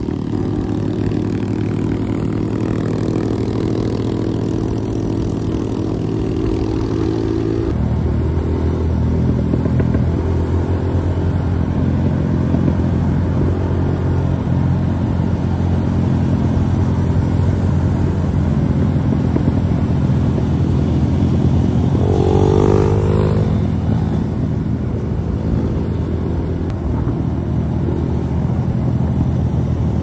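Motorcycle engine running steadily at road speed, heard from the rider's own bike, with road and wind noise. The engine note shifts abruptly about eight seconds in, and a brief rising rev comes about two-thirds of the way through.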